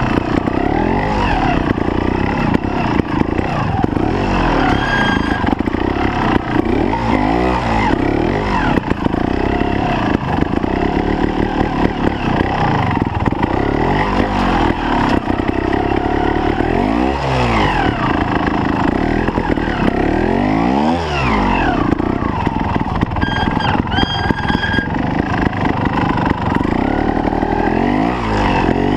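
Trials motorcycle engine revving up and down in repeated short blips and sweeps as the bike is ridden slowly over rough, snowy ground. A few brief high squeals sound a few seconds in and twice more past the two-thirds mark.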